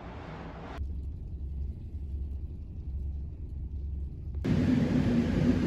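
Low, steady rumble heard inside a car's cabin. It comes after a brief stretch of outdoor hiss at the start, and about four seconds in it gives way to louder outdoor noise with a steady low hum.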